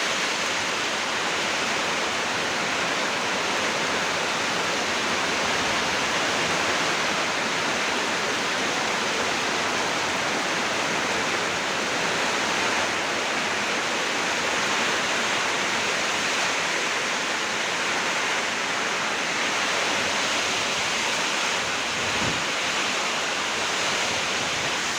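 Steady, unbroken rush of a heavy rainstorm with wind.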